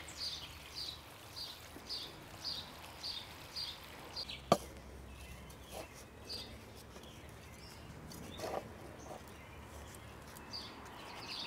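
A bird repeating a short high note about twice a second for the first few seconds, and again near the end, over faint outdoor background; a single sharp click about four and a half seconds in.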